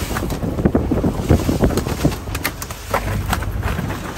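Wind buffeting the microphone over the sea and the running boat, with scattered irregular knocks and thumps as a mahi-mahi is hauled aboard and handled on deck.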